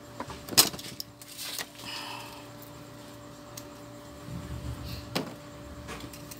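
Scattered clicks and light knocks of garlic cloves being peeled by hand with a small blade and handled over a plastic basket, the sharpest click about half a second in. A steady low hum runs underneath.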